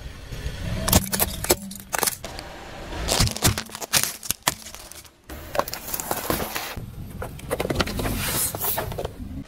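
A car tyre rolling over small objects and crushing them: a run of sharp cracks, snaps and crunches as a plastic toy breaks and toothpicks splinter, in separate bursts with a brief break a little after halfway.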